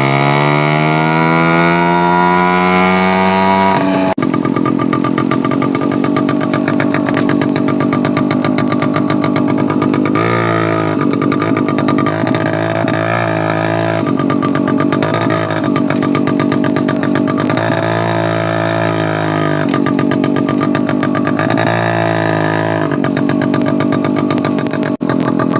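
TVS 50 moped's two-stroke engine, with the silencer's end cap removed, revved while standing: the pitch climbs over the first four seconds, then it runs fast and steady with several short throttle blips.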